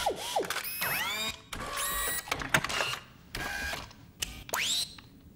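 RoboCop's servo-motor and thigh-holster sound effects as the Auto-9 pistol is drawn: a string of electronic whirs that sweep down and up in pitch, with mechanical clicks, ending in a rising whir.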